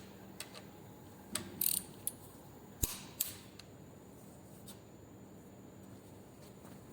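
Scattered sharp metallic clicks and a couple of brief scrapes from hand tools working on the valve gear of a Hino 300 diesel's cylinder head, about half a dozen in the first five seconds and then only a low steady hum.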